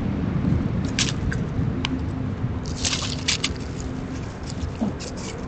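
Outdoor ambience: a steady low rumble with scattered short, sharp crackles, a small cluster of them about three seconds in.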